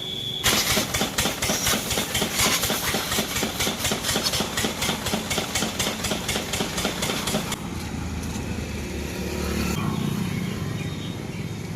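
Pressure washer running while the bike is washed, with a fast, even pulsing chatter, which gives way to a steadier, lower hum about seven and a half seconds in.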